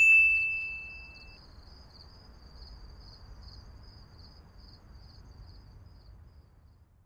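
A bright chime rings once and fades over about a second, over crickets chirping in a steady rhythm that fades out near the end, with a faint low rumble underneath.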